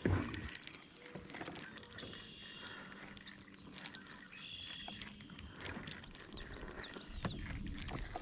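Quiet outdoor pond ambience: faint bird calls with scattered light clicks and ticks.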